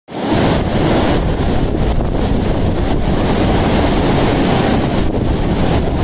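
Fast, silt-grey mountain river rushing and churning over boulders: a loud, steady roar of white water.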